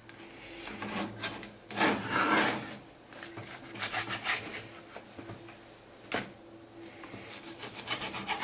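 Chef's knife cutting bacon on a plastic cutting board: scraping, sawing strokes of the blade through the meat, a sharp knock of the blade on the board, and a run of quick chopping taps near the end.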